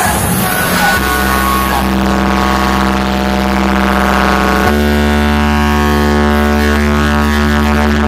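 A DJ sound-box system playing music at high volume: a held, buzzing bass synth note with strong low end. About halfway through it steps up to a slightly higher note.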